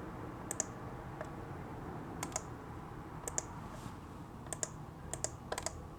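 Computer mouse clicking, about a dozen short sharp clicks at irregular intervals, several in quick pairs, as shapes are drawn and resized on screen. A faint steady room hum lies under them.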